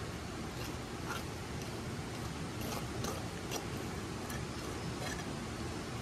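Fast-flowing stream and river water gushing: a steady, even rush, with faint light ticks scattered through it.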